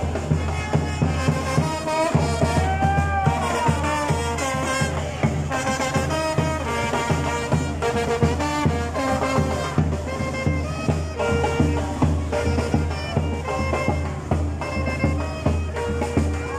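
Street brass band playing live: trombones carrying the melody, with a few sliding notes near the start, over a steady bass-drum beat.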